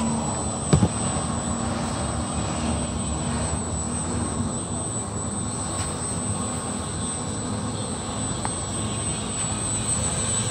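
Chigo VRF outdoor units running, their fans and compressors giving a steady rushing noise with a low hum and a thin high whine: the system is operating normally after its E0/E2 error codes were cleared. A single sharp knock sounds about a second in.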